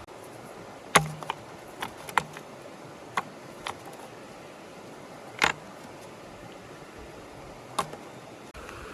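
Scattered sharp knocks and clicks of objects being handled, about eight in all, the loudest about a second in, over a steady hiss of running stream water.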